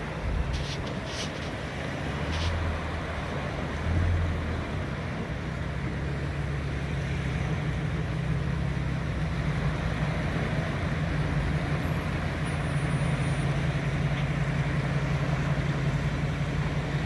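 Surf washing in over a steady low hum like an engine idling, with a few light clicks in the first few seconds.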